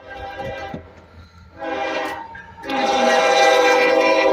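CSX freight locomotive air horn sounding three blasts, the first two short and the third held long and loud.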